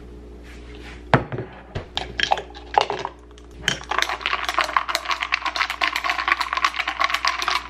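A spoon stirring a drink quickly in a glass jar, clinking fast and continuously against the glass for the last few seconds. A few single knocks and clunks come before it.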